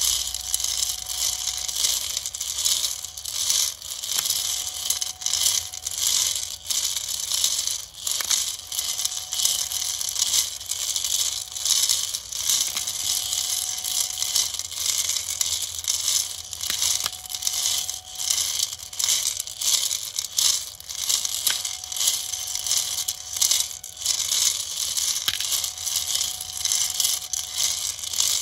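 Steel M3 hex nuts clattering and rattling continuously against each other and the inside of a rotating 3D-printed plastic rotary hopper drum, as they tumble in the pile and ride up its helical grooves. A faint steady tone runs underneath from the Nema17 stepper motor turning the drum.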